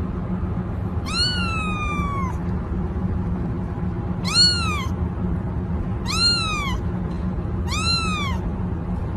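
A young kitten meowing four times. Each call is high-pitched and rises then falls, and the first is the longest. A steady low hum runs underneath.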